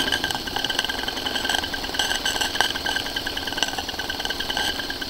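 Toy live-steam crane's small steam engine running, driving its winch gearing to haul up a bundle of sticks: a steady high whine with rapid ticking.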